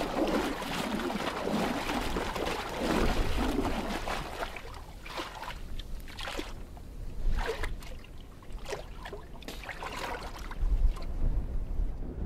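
Water sloshing and splashing in a seal's breathing hole in the sea ice, with a run of short sharp scrapes and knocks in the middle.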